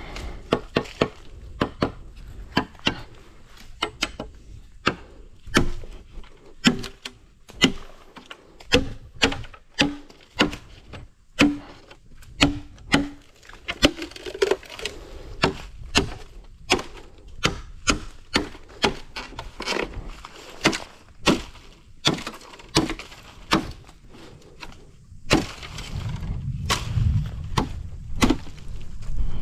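Blade chopping bamboo: a steady run of sharp strokes, roughly one or two a second, several with a short hollow ring. Near the end the strokes give way to a low steady noise.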